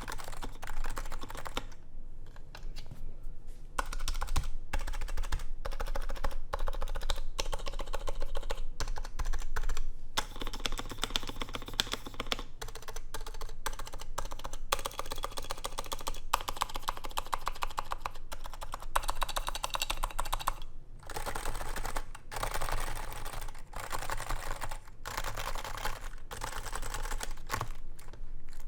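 Continuous typing on a Topre keyboard: Realforce R2 internals with stock, unlubed Topre switches and R2 keycaps, in a case with a stainless-steel plate. Rapid runs of keystrokes ease off briefly about two seconds in and stop for a moment about two-thirds of the way through.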